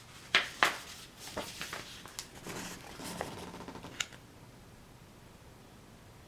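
Pages of a small picture book being turned and handled: two sharp paper flaps just after the start, then lighter rustles and clicks that die away about four seconds in.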